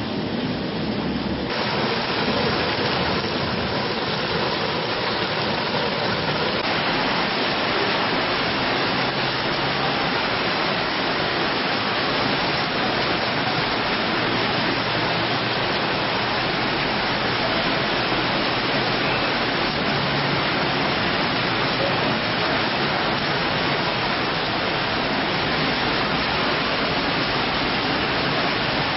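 Heavy downpour and floodwater: a steady, even rush of water, with the sound shifting slightly about one and a half seconds in and again around seven seconds in.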